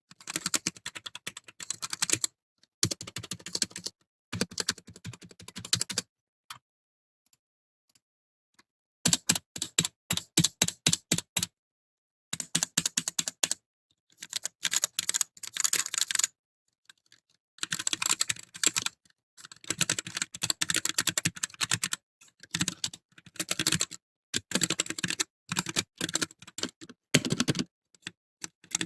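Gamakay K61 mechanical keyboard with Gateron Yellow linear switches being typed on in quick bursts of keystrokes separated by short pauses, with a longer pause of about three seconds early on.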